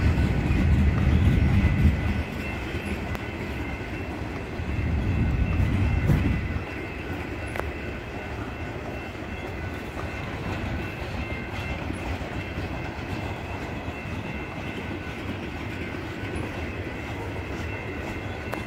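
A freight train's cars rolling past, centerbeam lumber flatcars and then boxcars, with a steady rumble of steel wheels on the rails and some clickety-clack. The rumble is heavier for the first six seconds or so, then settles to a lighter, even run.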